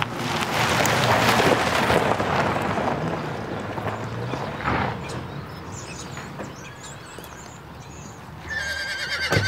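A Jeep Grand Cherokee SUV drives by over gravel, its tyre crunch and engine noise loud at first and then fading over a few seconds. Near the end a horse gives a short whinny.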